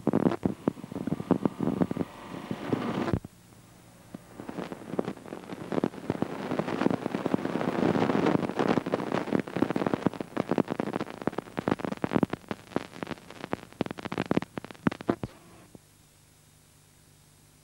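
Dense crackling and rumbling noise that drops out briefly about 3 seconds in, swells again, and stops suddenly near the end.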